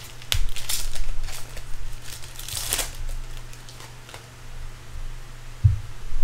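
Foil trading-card pack wrapper crinkling and cards being handled, loudest in the first three seconds, with a soft thump near the end over a steady low hum.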